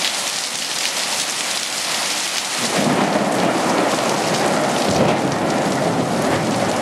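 Heavy rain pouring down in a thunderstorm. About three seconds in, a low rumble of thunder comes in and rolls on under the rain.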